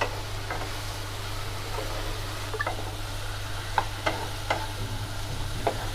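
Onions sizzling as they fry in oil in a pan, turning lightly brown, with a spatula stirring and knocking against the pan a handful of times.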